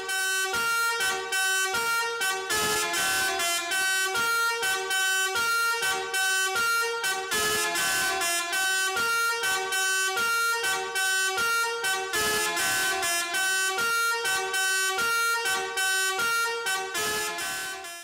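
Basuri six-trumpet musical air horn playing a tune as a quick run of short, separate notes, cutting off sharply at the end.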